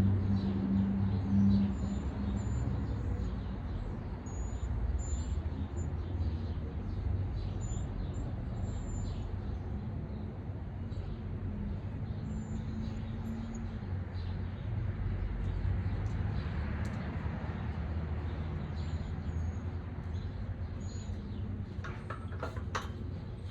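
Outdoor ambience: a steady low rumble, with short high bird chirps every second or so and a few sharp clicks near the end.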